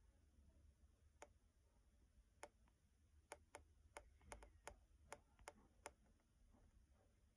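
Faint, sharp clicks, about ten of them at uneven intervals and bunched in the middle, over near silence.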